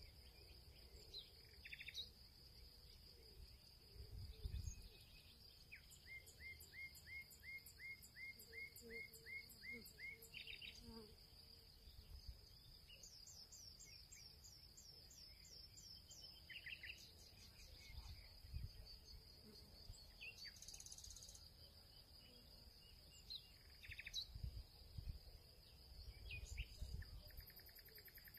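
Faint background ambience: a steady high-pitched insect trill throughout, with birds chirping in quick runs of repeated notes. A few soft low thumps.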